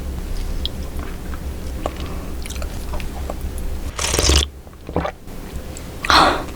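Close-miked chewing and biting of baby octopus, with small wet mouth clicks throughout. Two louder, short bursts of mouth noise come about four and six seconds in, over a steady low hum.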